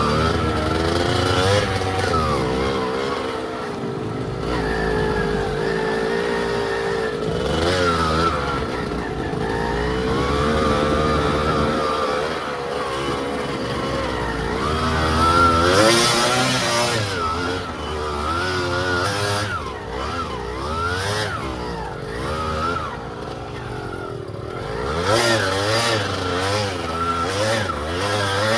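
Off-road trail motorcycle engine revving up and down over and over, its pitch rising and falling constantly as the throttle is worked on a hard climb.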